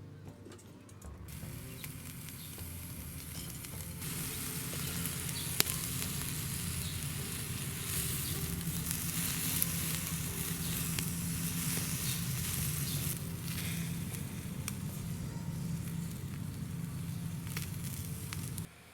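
Food sizzling as it grills on skewers over a wood fire, with a couple of sharp pops. The sizzle starts about a second in, grows louder a few seconds later, and cuts off suddenly just before the end.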